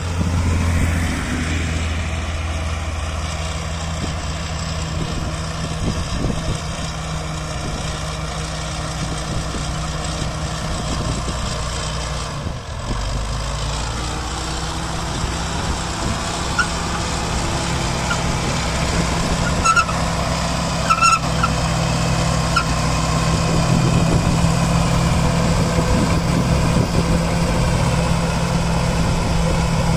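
Caterpillar D4H crawler dozer's diesel engine running steadily under load while it pushes dirt, along with the noise of its tracks. There is a short dip and change in the engine note about twelve seconds in, a couple of brief high squeaks around twenty seconds in, and the machine grows a little louder in the second half.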